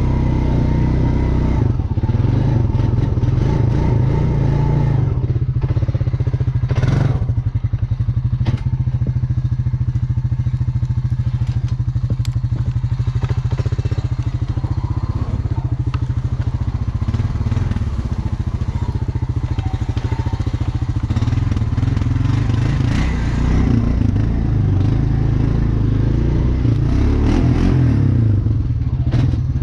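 Honda Rancher 350 ES ATV's single-cylinder engine running at low speed while being ridden over snow and mud. There is a sharp clatter about seven seconds in, and more throttle in the last several seconds.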